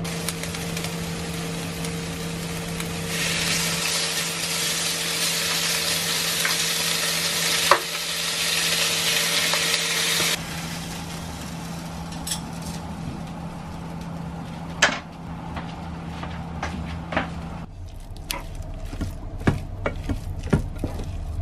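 Ginger-marinated pork slices sizzling on a hot electric grill pan with sliced red onions, over a steady low hum. The sizzle is loudest from about three seconds in until about ten seconds in, then settles, with a few sharp spatula clicks. Near the end it gives way to a wooden spatula stirring and tapping through red-bean rice in a pot.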